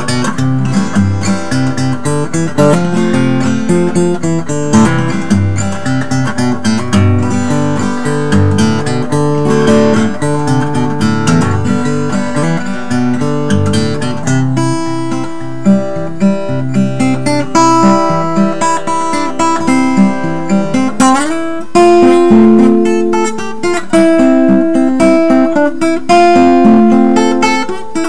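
1992 Gibson J60 dreadnought acoustic guitar with a spruce top and rosewood back and sides, played with the fingertips in full strummed and picked chords. About twenty seconds in there is a quick slide up the neck, after which the playing thins out to ringing single notes and partial chords with good sustain.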